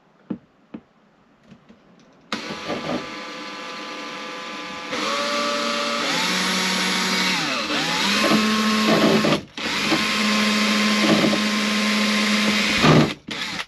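Handheld electric drill starting about two seconds in, its motor whine rising and dipping as the speed is feathered. It is boring a small stop hole at the end of a crack in a caravan sunroof so the crack can't spread. It stops briefly about two-thirds of the way through, then runs again and stops near the end.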